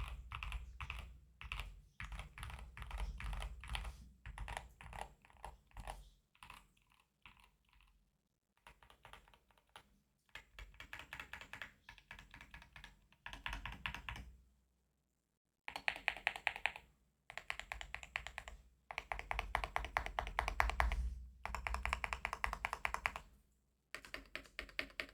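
Keychron K2 HE keyboard with Gateron double-rail magnetic (Hall-effect) switches being typed on in fast runs of keystrokes, with a few short pauses between runs.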